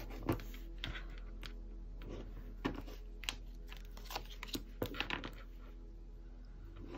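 Tarot cards being handled on a table: about ten soft, scattered clicks and taps, mostly in the first five seconds, over faint background music that fades out early.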